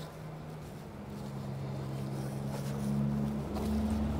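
A vehicle engine running steadily with a low hum, its rumble growing louder about three seconds in.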